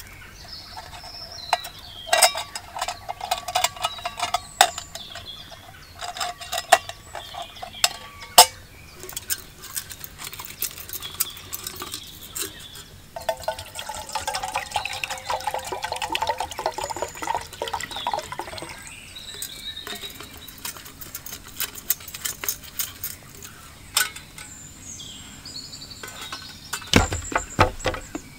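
Water poured from a metal canteen into a steel canteen cup, a steady pour of about five seconds midway, amid metal clinks and sharp crackles from a small wood fire. Near the end the metal cup is set onto the folding wood-burning stove with a few clunks.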